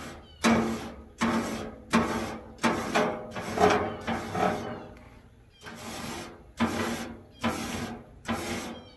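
Rhythmic back-and-forth scraping on the smoker's metal cooking grate, a little more than one stroke a second with a brief pause midway.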